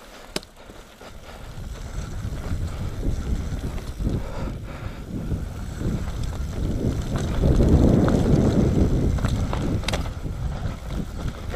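Wind buffeting the microphone and tyre and frame noise from a Nukeproof Mega 275 enduro mountain bike riding fast down a dirt trail. It builds from about a second in, is loudest about eight seconds in, then eases slightly.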